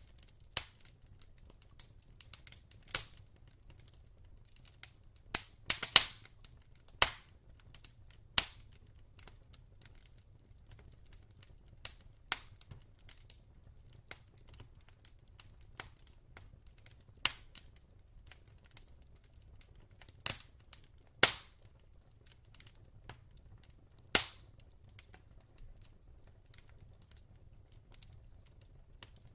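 Log fire crackling, with irregular sharp pops and snaps. The loudest cluster comes about six seconds in, with single loud pops near 21 and 24 seconds.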